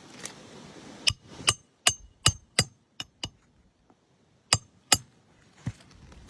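Hammer striking roofing nails during an asphalt-shingle repair: a quick run of seven sharp metallic strikes, each with a short ring, then a pause of about a second and three more strikes.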